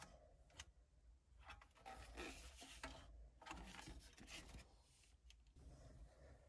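Near silence, with faint rubbing and a few light ticks from the removed factory Toyota head unit and its metal mounting bracket being handled.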